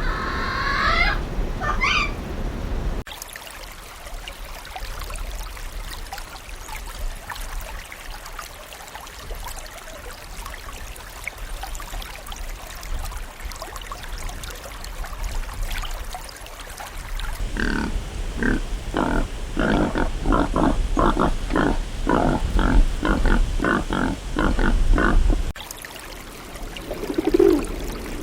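An animal giving a long run of rapid, rhythmic grunting calls, about three a second for roughly eight seconds, in the second half. Shorter gliding animal calls come near the start, and low rumbling fills the stretch in between.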